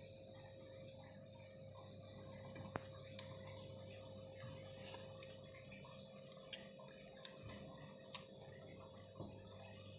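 Faint scattered clicks and taps as siamangs pick at fried rice and shift about on a corrugated metal roof, over a steady faint hum.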